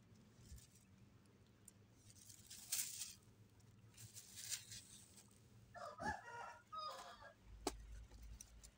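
A chicken calls once, about six seconds in, a pitched wavering call lasting over a second. Before it come a few short rustles, and a sharp click follows it.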